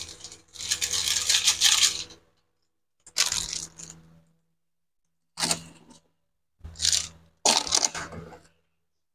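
A wok of broth simmering on the stove, giving a bubbling hiss that comes and goes in short bursts about half a dozen times.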